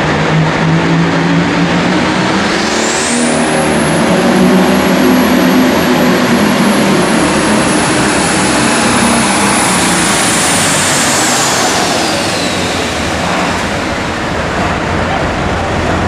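Pro Stock pulling tractor's turbocharged diesel engine under full load, pulling the sled. A high turbocharger whine climbs about three seconds in, holds, then falls away shortly before the end.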